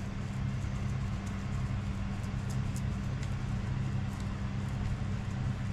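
A steady low machine hum made of several held tones, with faint, scattered scratchy ticks from a paintbrush spreading PVC glue over a plastic mounting pad.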